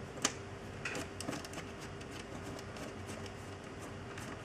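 Screwdriver working loose screws out of a metal amplifier case: one sharp click about a quarter second in, a few lighter clicks around a second in, then faint scattered ticks over a steady low hum.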